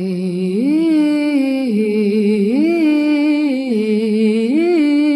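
Isolated female lead vocal, with no backing instruments, holding one long sung note that swoops up and back down three times.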